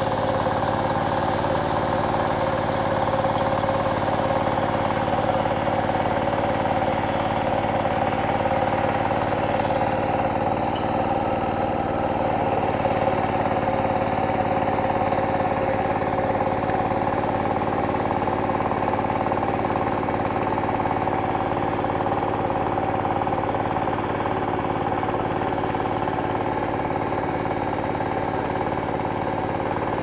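Paddy tractor engine running steadily while plowing a flooded rice field.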